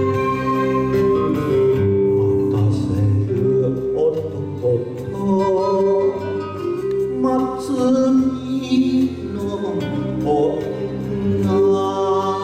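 Enka backing music playing an instrumental interlude between sung verses: a melody line over a steady accompaniment.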